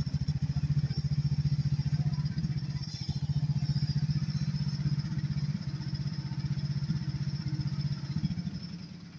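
Chinese mini excavator's small gasoline engine running at idle while the hydraulic arm digs and swings a bucket of dirt: a steady, rapid chugging. Right at the end it slows and dies away.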